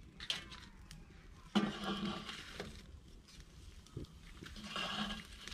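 A person's short, quiet vocal sounds, twice, about a second and a half in and near the end. Between them come a few light clicks of kindling sticks being pushed into a wood-fired clay stove.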